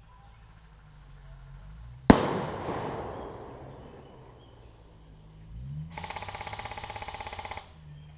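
One loud blast of an airsoft pyrotechnic charge about two seconds in, dying away over about two seconds. About six seconds in, an airsoft electric rifle fires a full-auto burst of about a second and a half, at roughly fifteen shots a second.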